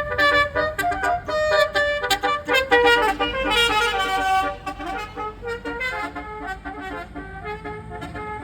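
A bus's basuri air horn playing a quick multi-note telolet melody. It is loud for the first four seconds, then carries on more quietly.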